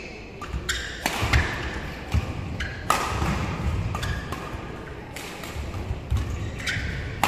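Badminton rally: several sharp smacks of rackets striking the shuttlecock, spaced a second or more apart, with low thuds of the players' footwork on the court in between.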